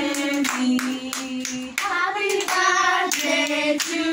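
A group singing together, children's voices among them, with steady hand clapping in time.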